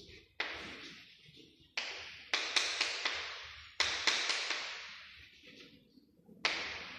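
Chalk writing on a chalkboard: a string of sharp taps as the chalk strikes the board, each trailing off into a scratchy stroke that fades, about seven in all, some in quick pairs.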